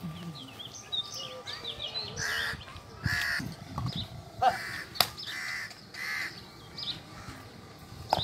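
Crows cawing, several short harsh caws a fraction of a second apart, with small birds chirping in the first couple of seconds and a sharp click about five seconds in.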